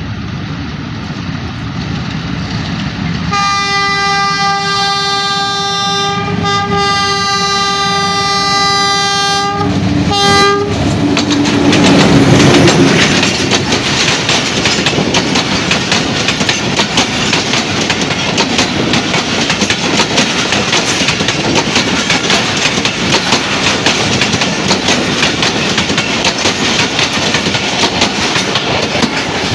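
Pakistan Railways HBU 20 diesel locomotives sounding their horn from about three seconds in, one long blast broken twice briefly and ending around ten seconds in. The locomotives then pass close by, loudest just after the horn stops, and the coaches follow with a steady clickety-clack of wheels over the rail joints.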